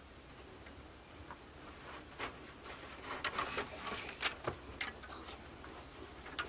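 Thin poles of a bed frame clicking and knocking against each other, with rustling of vine cord, as the slats are lashed together by hand. Quiet at first, then a run of scattered light clicks from about two seconds in.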